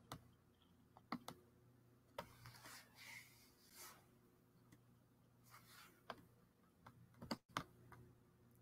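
Near silence: room tone with a faint steady hum and a few scattered faint clicks.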